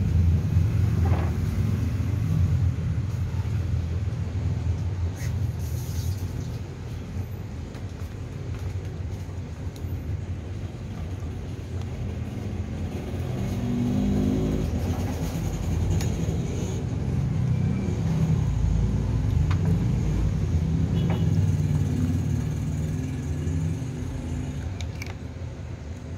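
A low rumble that swells and fades slowly, with a few faint clicks.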